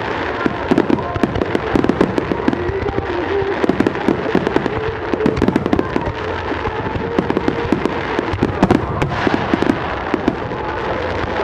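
Fireworks going off in quick succession: a dense, continuous run of bangs and crackles from many bursts.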